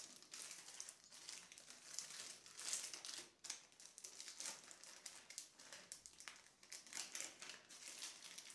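Thin clear plastic bag crinkling faintly in short scattered clusters as it is handled to unwrap a TV remote control.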